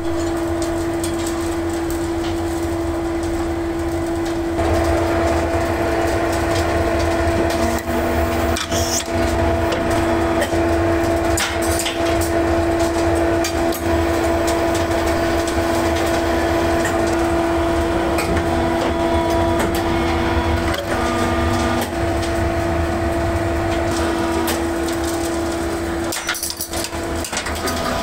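Aluminium die-casting machine running with a steady hum and low rumble. Occasional short metallic knocks come through, and the hum grows louder about four and a half seconds in.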